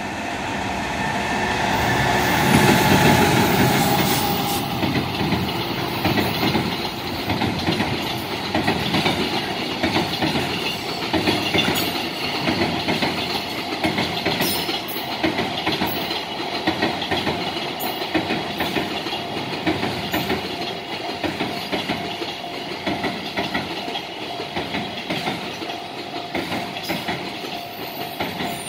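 Freight train passing at speed: the electric locomotive goes by loudest two to four seconds in, then a long run of container and tank wagons clatters rapidly over the rail joints. A level-crossing alarm rings steadily behind it.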